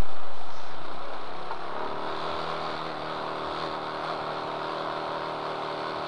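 Trophy kart's engine running under way, picked up through the driver's helmet microphone. A loud rush fades over the first two seconds, then the engine holds a steady tone over a hiss.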